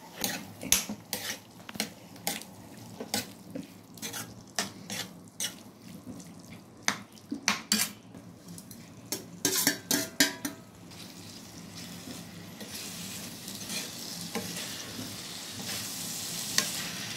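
A steel spoon stirring potatoes and brinjal in spice masala in a frying pan, clinking and scraping on the metal again and again. From about twelve seconds in, a steady sizzle of frying takes over.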